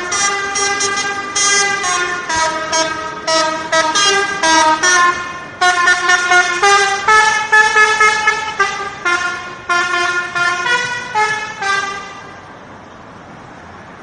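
A bus's 'telolet' horn, a multi-tone musical air horn, playing a rapid tune of stepping notes. It stops about twelve seconds in, leaving the quieter sound of passing traffic.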